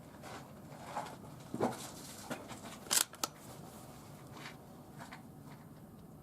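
A handful of short, sharp clicks and light handling knocks, the loudest about three seconds in: gear being handled at the shooting bench before firing.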